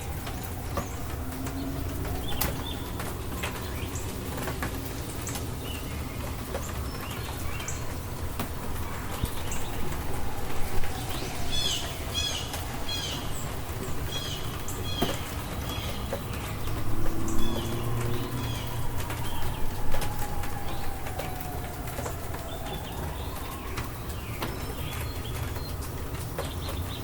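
Rainstorm ambience: steady rain with scattered drips. A bird chirps in short repeated runs near the middle, and there are a few louder swells in the low rumble.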